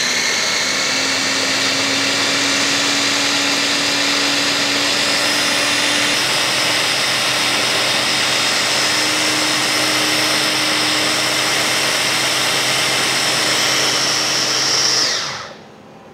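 Electric food chopper with a stainless motor head on a glass bowl, running steadily as it purees pineapple flesh. Its motor whine creeps slightly higher in pitch, then it is switched off and spins down near the end.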